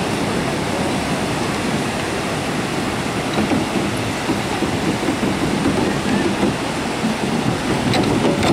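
Surf breaking and washing up the beach, a steady rushing noise.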